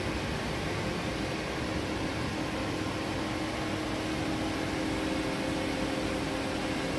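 Steady hum of a powered-up DMG Mori NLX2000SY CNC turning center at idle: an even rushing fan noise with a few low steady tones.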